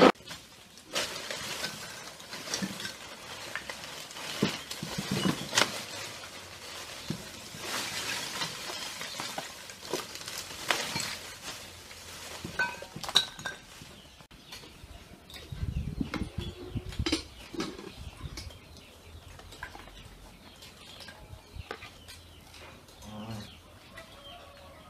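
Scattered clinks and knocks of dishes, utensils and lumps of charcoal being handled at an outdoor grill, with chickens calling in the background.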